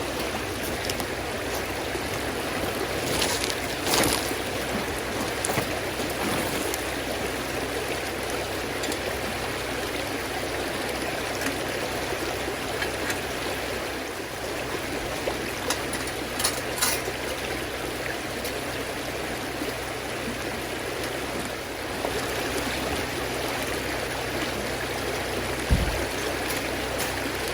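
River water flowing steadily nearby, with a few light clicks and knocks from the fire stand being set up.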